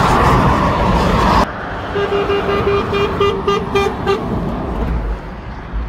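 Loud lorry and motorway traffic noise that drops away suddenly about a second and a half in. Then a lorry's horn sounds a rapid string of short toots on one pitch, about five a second for some two seconds, given in answer to a truck spotter.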